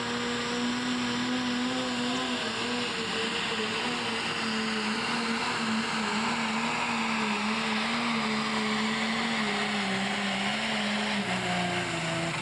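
Turbocharged diesel engine of a John Deere pro stock pulling tractor running flat out under heavy load as it drags the sled. It is a steady drone that wavers a little in pitch and drops noticeably about a second before the end.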